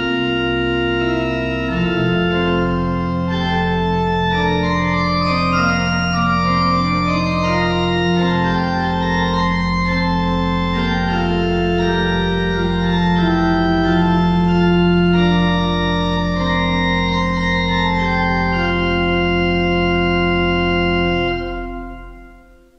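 Pipe organ playing a chorale setting: moving chords over a low pedal note held for most of the passage, closing on a final chord that dies away near the end.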